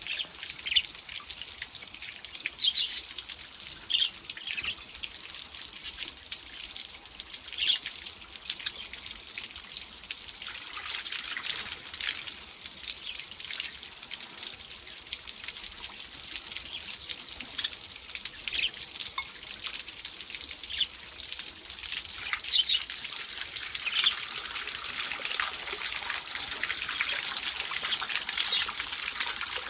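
Steady trickle of water for pet budgies and lovebirds to bathe in, with short high chirps from the birds scattered throughout.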